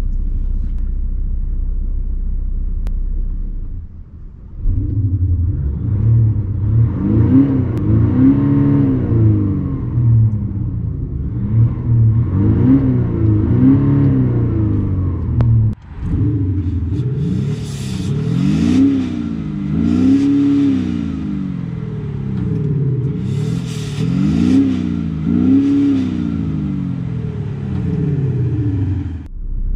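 Audi SQ5 TDI's 3.0 V6 diesel with its exhaust sound actuator set to medium: a steady low drone for about four seconds, then the engine revving up and down again and again. About halfway through the sound changes abruptly, and later parts are heard from outside at the rear of the car.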